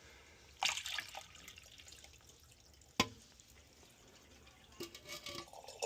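Water trickling and dripping as it drains through a furnace condensate drain line that has just come unclogged after flushing. A short splash comes about half a second in and a sharp click about three seconds in.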